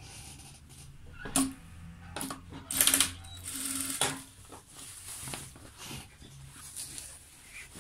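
Jack industrial sewing machine stitching a hem in short stop-start runs, the needle clattering, with fabric rustling between runs.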